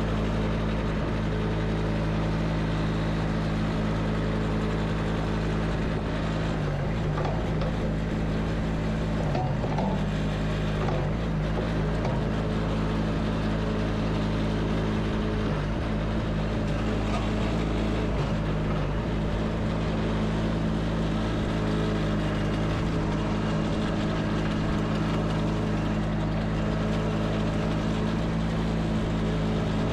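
Kubota 25 hp diesel engine of a Cougar CG827 track loader running at a steady speed, dipping briefly in pitch a few times.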